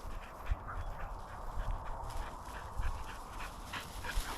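Irregular crunching and rustling of movement through dry field grass and brush, several crackles a second, over a low rumble of wind on the microphone.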